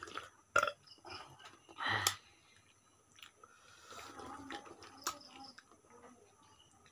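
Slurping spicy chicken curry gravy straight from the rim of a steel plate. There is a loud slurp about two seconds in and softer ones around four to five seconds, with a sharp click just before the first.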